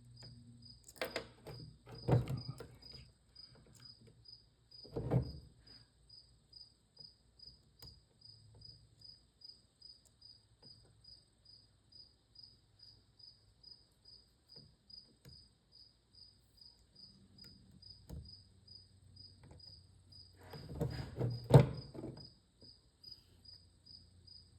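A cricket chirping steadily, about two chirps a second, through hand-tool work: bursts of small metal clicks and clatter from the torque wrench's ratchet parts being handled a second or two in, again around five seconds, and near the end, where one sharp click is the loudest sound.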